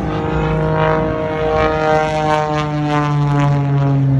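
Engine and propeller of a small aerobatic plane running, one steady note whose pitch falls slowly throughout.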